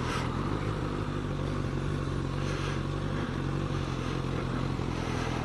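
2018 Suzuki GSX-S1000's inline-four engine, heard onboard, running at a steady cruise. Its pitch is even, with a slight change about three seconds in.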